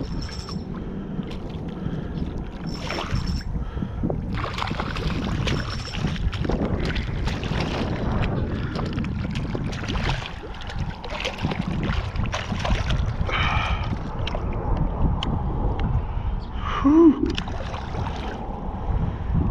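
Speckled trout thrashing and splashing at the water's surface as it is played in and gripped, under steady wind noise on the microphone.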